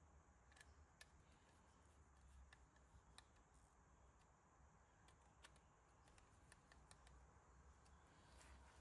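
Near silence, with faint scattered clicks from a hand screwdriver turning a small screw into a plastic RC model gearbox.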